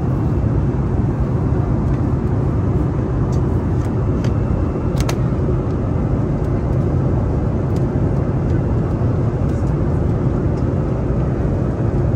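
Steady roar of cabin noise inside an Airbus A340 in flight. A few light clicks from the seat's tray table being unfolded and handled, the sharpest about five seconds in.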